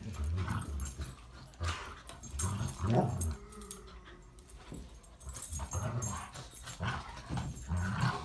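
Two goldendoodles play-fighting, growling in short low bursts with pauses between them.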